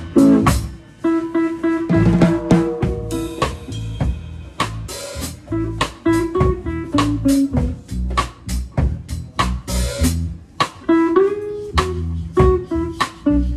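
A live band plays: guitar over a drum kit with steady snare hits.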